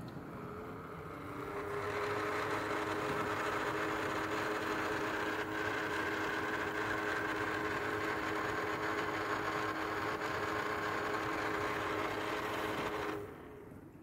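LG QuadWash Steam dishwasher running its wash cycle: the pump motor hums steadily with a couple of steady tones under a hiss of spraying water and steam. It builds up over the first two seconds and stops abruptly shortly before the end.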